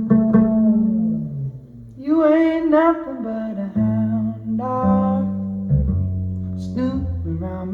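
Recorded music playing through Dynaudio Contour 30 loudspeakers: the bluesy intro of a song with plucked bass and guitar notes and a short wordless vocal line about two seconds in, heard in the room through a phone microphone.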